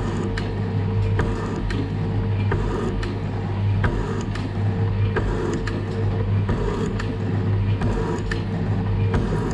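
Metal shaper running and cutting a metal block: a steady motor hum with a sharp clack at each stroke, somewhat under a second apart.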